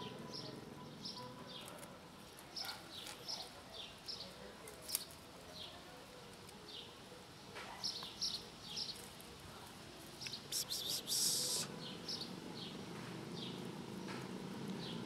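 Small birds chirping: short, high, downward-sliding chirps repeated irregularly throughout. A brief rustle about ten and a half seconds in.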